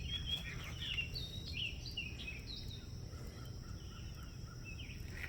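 Small birds chirping, many short calls in the first three seconds and fewer after, over a steady low background rumble.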